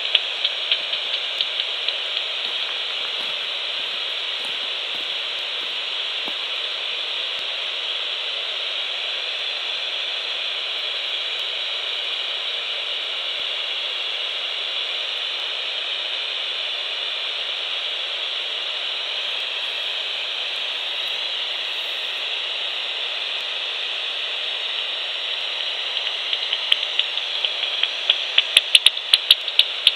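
Bat echolocation calls heard through a Magenta Bat5 heterodyne bat detector, rendered as sharp clicks over the detector's steady hiss. A few clicks come at the start; from about 26 seconds in, a run of clicks builds to several a second.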